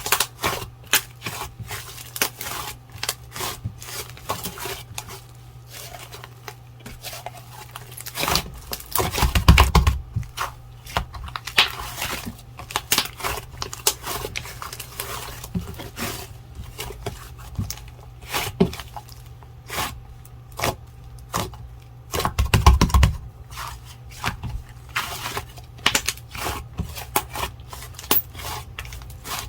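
Slime being pressed, stretched and squished by hand, giving rapid sticky clicks, pops and crackles, with two longer, louder spells of handling about nine and twenty-two seconds in.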